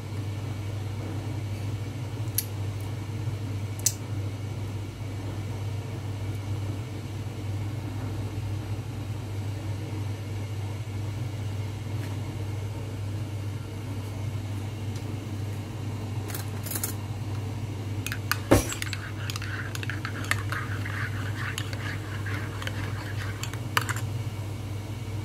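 A Nespresso appliance humming steadily, with a few light clicks. Near the end there are metallic clinks, one knock, and a few seconds of a metal spoon scraping and stirring in a ceramic mug.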